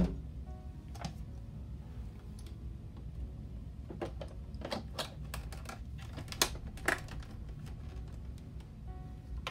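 Plastic blender lid being fitted and pressed down onto a full pitcher: several sharp clicks and knocks, most of them between about four and seven seconds in.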